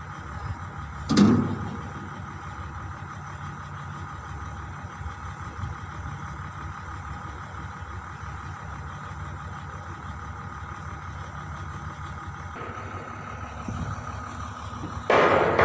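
Heavy diesel engine idling steadily, with a single brief loud sound about a second in.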